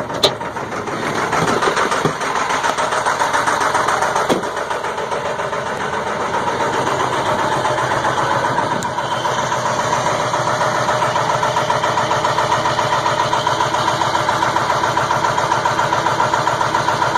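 Ford 7.3 L Powerstroke V8 turbo-diesel running with a fast, even pulse just after catching from a hard cold start that took about 8.5 minutes of cranking. It runs louder for the first few seconds, with a few sharp clicks, then settles to a steady idle.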